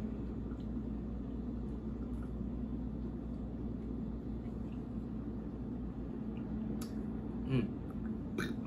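Steady low hum of indoor room and appliance noise, with a faint steady tone in it. A few small clicks come through, along with a short low sound about seven and a half seconds in and a sharper click near the end.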